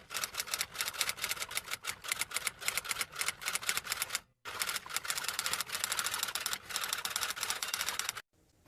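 Fast typing: a rapid clatter of key clicks in two runs, broken by a brief stop about four seconds in and ending near the end.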